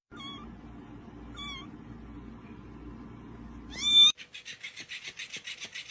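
Cat meowing: two short, high mews, then a louder meow that rises in pitch about four seconds in. The sound then cuts off and a rhythmic scratching rasp follows, about five strokes a second.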